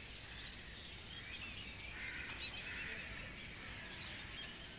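Small birds chirping and twittering faintly, with a wavering trill about two to three seconds in.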